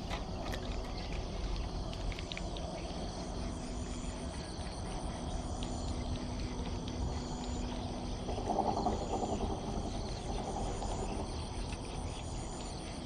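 Outdoor ambience of insects chirping, a short high-pitched pulse repeating about once a second, over a steady low rumble. A lower call like a frog's croak comes briefly about eight and a half seconds in.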